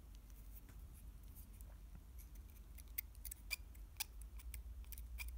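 Hobby knife blade scraping and picking at a 3D-printed resin doll head to clean off leftover support nubs: faint scratching with a handful of sharp little clicks, most of them from about three seconds in.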